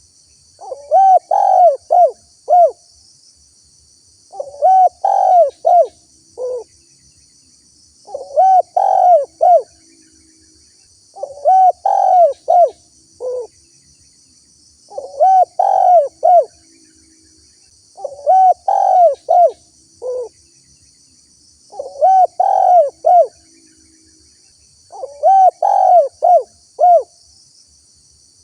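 Spotted dove cooing its phrased call over and over, a group of several coos about every three and a half seconds. A steady high insect buzz runs behind it.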